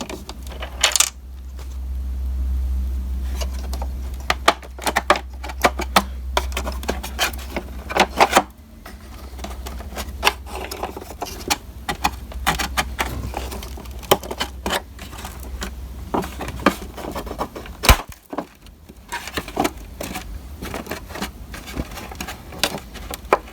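Screws being backed out of the plastic belt cover of a Dirt Devil Featherlite upright vacuum cleaner with a Phillips screwdriver: a long run of small clicks and metallic rattles as the screwdriver, the screws and the cover are handled. A low rumble runs under the first several seconds.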